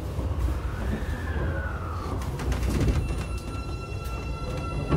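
Osaka Metro 24 series subway car running, heard from inside: steady wheel-on-rail rumble under the whine of its Hitachi IGBT VVVF inverter. A tone glides up and back down in the first two seconds, then from about three seconds in a steady whine of several pitches sets in.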